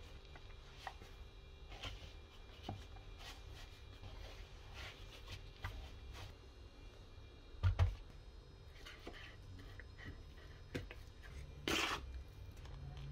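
Hands kneading a sticky bread-roll dough in a plastic bowl: soft squishes and scuffs about once a second, a low thump past the middle, and a short, louder scrape near the end.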